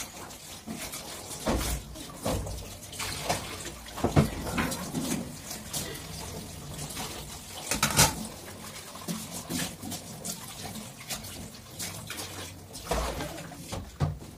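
Dishes being washed by hand in a metal sink: irregular clinks and clatter of utensils against each other and the sink, with scrubbing and splashing water. The sharpest knocks come about 4 and 8 seconds in.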